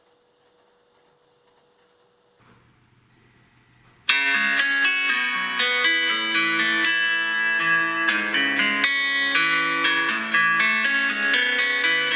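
Near silence, then about four seconds in a Xiaomi POCO X3 NFC stock ringtone starts: a melody of quick plucked, guitar-like notes.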